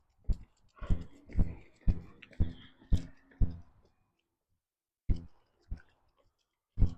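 Footsteps while walking, short thumps about two a second. They stop for about a second and a half a little past the middle, then pick up again more sparsely.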